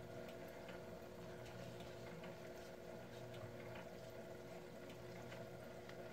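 Faint crocheting sounds: small scattered clicks and rubbing as a crochet hook pulls acrylic yarn through tight stitches, over a steady faint hum.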